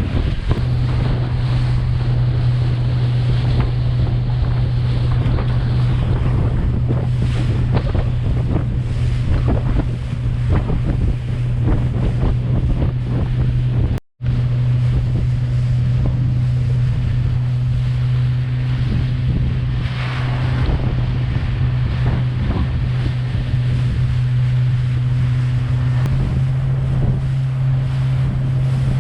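Boat engine droning steadily under way, with wind buffeting the microphone and water rushing past the hull. The sound drops out for an instant about halfway through.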